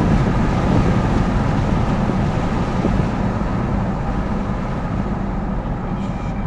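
Engine and road noise of a 2012 Jeep Grand Cherokee's 5.7 L HEMI V8 at speed, heard from inside the cabin. The sound is steady and slowly gets quieter.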